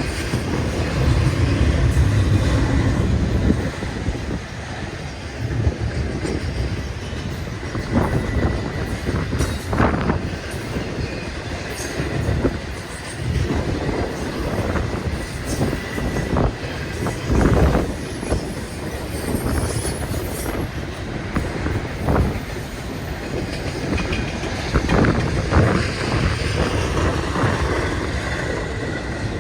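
Union Pacific intermodal freight cars rolling past, with a steady rumble and irregular knocks of wheels over rail joints. A faint steady wheel squeal rides over it.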